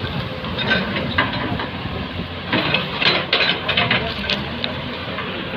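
Engine running steadily at a demolition site, with bursts of short clattering knocks.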